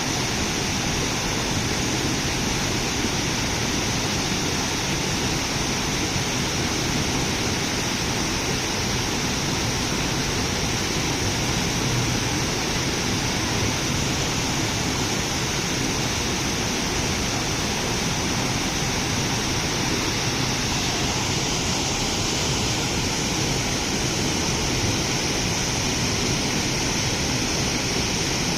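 Steady rushing noise with a high, even hiss over it, unchanging throughout.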